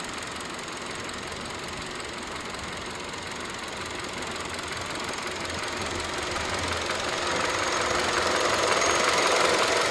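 Kia Cerato's 1.6-litre G4FG DOHC 16-valve inline-four idling steadily, growing louder over the last few seconds as the sound is picked up nearer the open engine bay.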